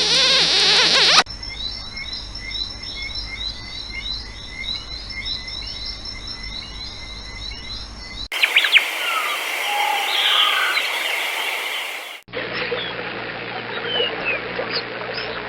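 Short spliced sound-effect clips of animal chirping, with many quick repeated chirps and little whistled glides. The clip changes abruptly about a second in, again at about eight seconds and at about twelve seconds, after a loud noisy sound in the first second.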